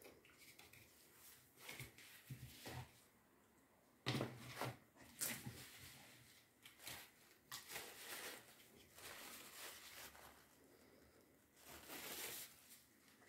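Faint, intermittent rustling and handling noises, like paper or tissue being crinkled and moved, with a louder cluster about four seconds in and another near the end.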